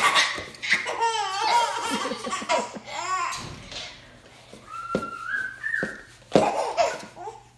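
Laughing and giggling, with a few sharp knocks from a baby bouncing in a bouncer seat. About five seconds in there is a brief high held note that steps upward.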